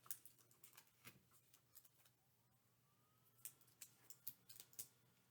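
Near silence, with a few faint scattered clicks and rustles of paper cut-out fish and tape being handled and pressed down.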